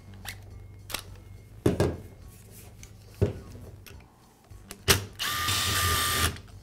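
A few sharp clicks and knocks from handling a laminate trimmer, then a cordless driver running for about a second near the end, backing a screw out of the trimmer's plastic housing.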